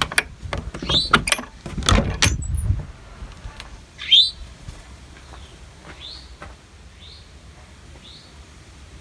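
A wild bird calling with short rising chirps, a loud one about a second in and another about four seconds in, then fainter ones about once a second. Over the first three seconds there is a cluster of clicks, knocks and thuds from something being handled.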